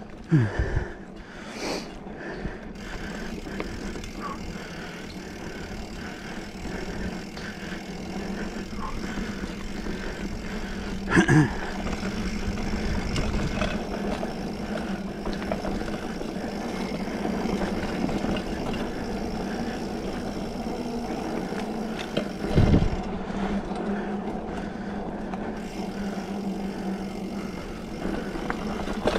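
2020 Specialized Fuse 27.5+ mountain bike ridden along a dirt trail: steady tyre and drivetrain noise with a constant low hum, the chain running through a broken rear derailleur that has been patched up to keep riding. Three hard knocks break through: one near the start, one about eleven seconds in and one about twenty-three seconds in.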